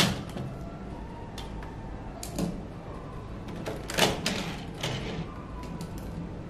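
Plastic parts of a DX Daivoyager toy robot set being unclipped, slid apart and set down on a table: sharp plastic clicks and clacks, the loudest right at the start and about four seconds in, with lighter rattles between.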